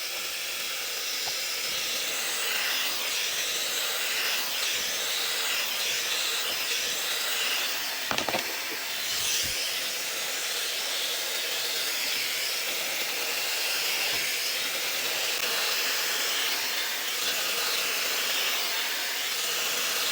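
Shark hair dryer running, a steady rushing hiss of blown air that swells and eases a little as it is moved over the hair. A brief clatter of clicks comes about eight seconds in.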